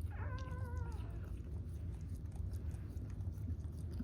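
A newborn dachshund puppy gives a single high, wavering whine, about a second long, at the start.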